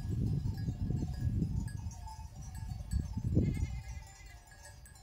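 Flock of sheep and goats grazing, with a short bleat about three and a half seconds in. Under it runs a low, uneven rumble that is the loudest sound.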